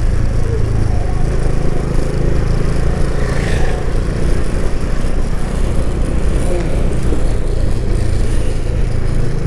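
Motorcycle engine running steadily at cruising speed, a low drone with wind rushing over the microphone.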